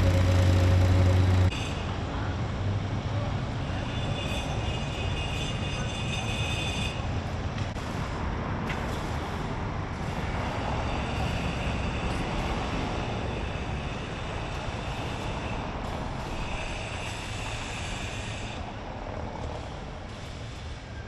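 A nearby engine running with a steady low hum that cuts off about a second and a half in. It is followed by a steady outdoor rumble of motor vehicles and machinery, with a high whine that comes and goes.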